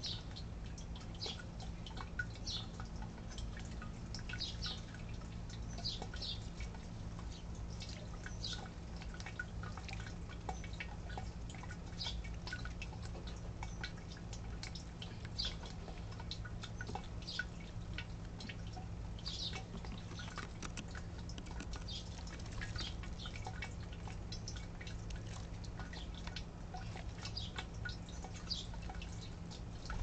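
House sparrows chirping: short, scattered cheeps every second or so, over a steady low hum.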